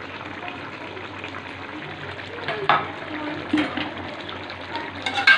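Mutton curry gravy simmering in a pot on medium flame with a steady hiss, its water cooking off. A few short knocks of a spoon against the pot come about two and a half seconds in, and a sharper one near the end.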